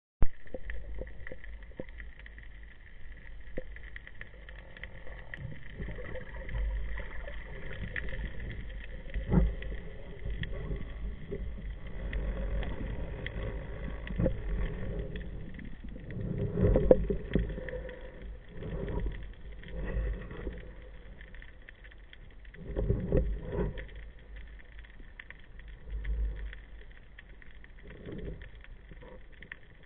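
Muffled underwater sound heard through a camera's waterproof housing: a steady low rumble of moving water with scattered knocks and thumps, the loudest about halfway through and again a little after two-thirds of the way.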